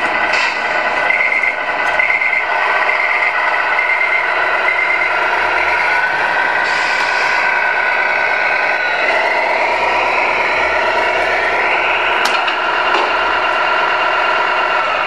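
Tamiya Scania R470 RC model truck's onboard sound unit playing a truck diesel engine sound through a small speaker as the model drives. The engine note shifts and glides up and down in pitch partway through, and there is one sharp click near the end.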